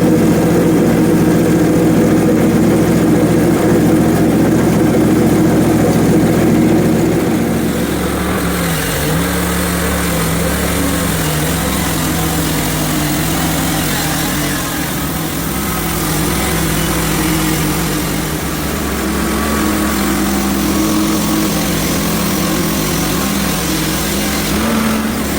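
Hudson HFE30 band sawmill's gas engine running steadily. About eight seconds in, its pitch drops and a rough hiss rises as the band blade cuts into the maple log.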